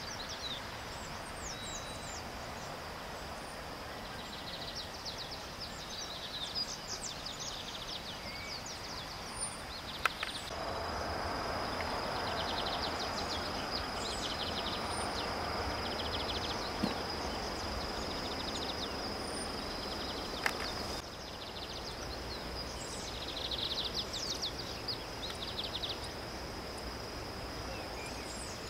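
Open-air ambience of birds chirping in repeated quick trills over a steady, high insect drone. In the middle stretch a louder, even rush of river water comes in, starting and stopping abruptly.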